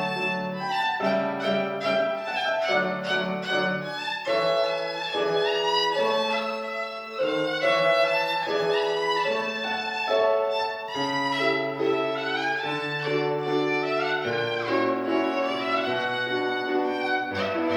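Solo violin playing a classical concert piece, a quick-changing melody of bowed notes, over held low notes of a piano accompaniment.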